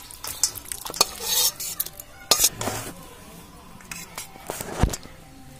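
Spatula scraping and knocking against a metal cooking pan as thick chicken curry is tipped out into a stainless steel bowl, a run of irregular scrapes and clinks with a sharp knock a little past two seconds and another near the end.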